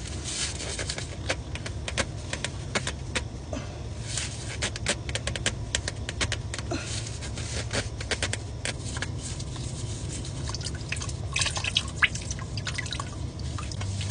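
Engine oil dripping from the drain hole into a drain pan: many small, irregular drips over a low steady hum.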